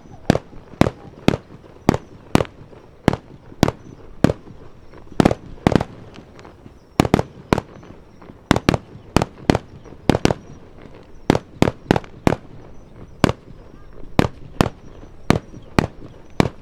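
Aerial firework shells bursting in a rapid, irregular barrage, about two to three sharp bangs a second, some coming in close pairs.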